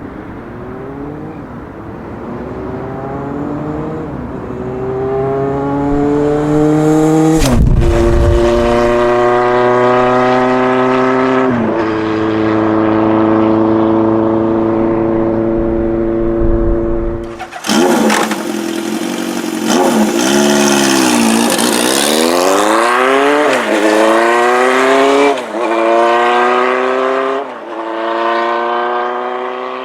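Honda CB 750 Four's air-cooled inline-four through a 4-into-1 exhaust, accelerating on the road. Its pitch climbs, drops at two upshifts, and then holds steady. In the second half the revs swing down and up again and again.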